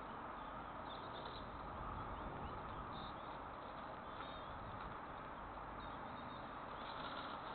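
Steady outdoor hiss from a nest-box webcam microphone, with a few faint, high bird chirps about one, three and four seconds in.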